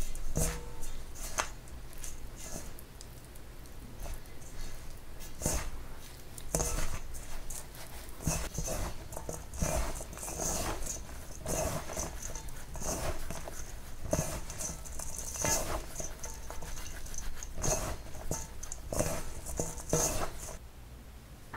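Hands rubbing and scrunching damp glutinous rice flour mixed with mugwort against a stainless steel bowl: irregular gritty rustling strokes, about one or two a second, that stop near the end.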